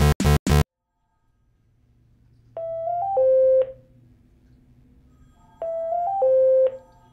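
The end of a synth logo sting cuts off in three short stutters. Then, over a low hum, an electronic telephone rings twice about three seconds apart; each ring is a short note stepping slightly up, followed by a lower held note.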